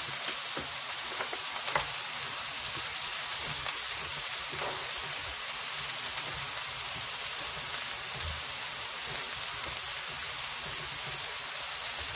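High-fat ground-beef smash burger patties sizzling steadily in their rendered grease on an electric flat-top griddle, with a few small pops.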